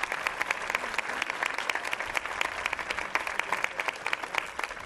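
Audience applauding: many hands clapping together, with sharp single claps standing out.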